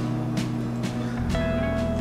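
Calm instrumental background music: held tones with soft strikes about twice a second, and a new higher note coming in and held from about two-thirds of the way through.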